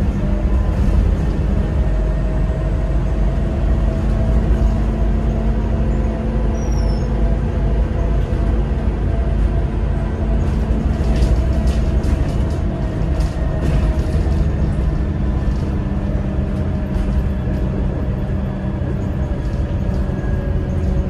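Alexander Dennis Enviro300 single-deck bus under way: a steady engine and road rumble with slowly shifting engine tones. A run of rattles and clicks comes between about ten and fourteen seconds in.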